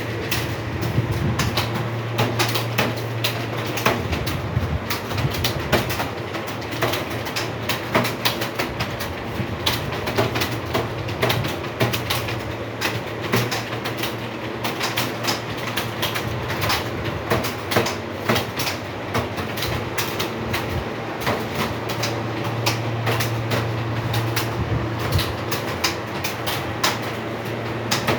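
Computer keyboard being typed on continuously: a fast, irregular stream of key clicks over a steady low hum.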